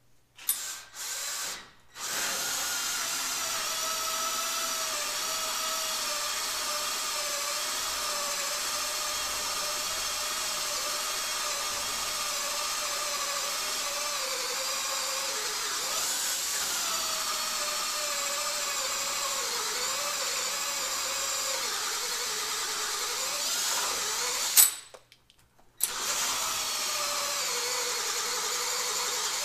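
Handheld power drill drilling under load: two short trigger spurts, then a long steady motor whine whose pitch wavers and sags as the bit bites. About 25 seconds in a sharp snap cuts it off for a second before the drill starts up again.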